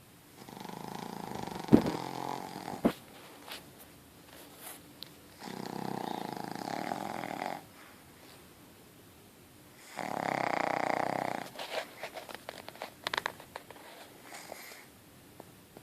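Pug snoring in deep sleep: three long rasping snores about five seconds apart, each lasting about two seconds. A sharp click sounds during the first snore, and small clicking snuffles follow the third.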